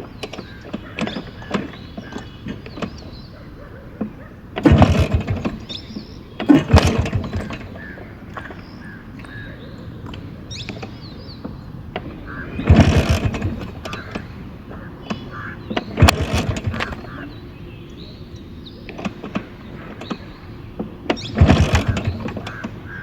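1997 Bajaj Chetak scooter's single-cylinder two-stroke engine running, revved up in about five short surges between steadier stretches as it is ridden over rough ground.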